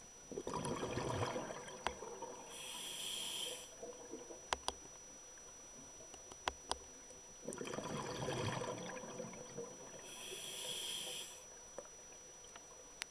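A scuba diver breathing through a regulator underwater: two full breaths, each a lower rushing sound followed by a higher hiss, with a few sharp clicks in between.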